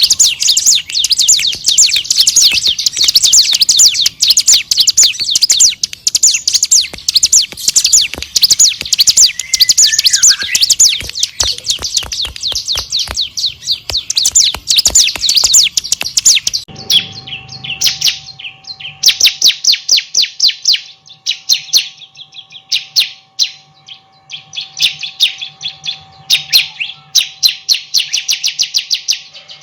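Bar-winged prinia (ciblek) singing a fast, unbroken run of sharp, high chirps. About seventeen seconds in, the song breaks into shorter bursts with brief pauses, over a faint steady hum.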